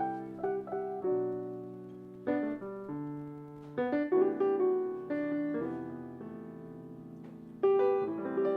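Solo jazz piano playing the introduction: a series of struck chords that ring and fade, with a louder chord near the end.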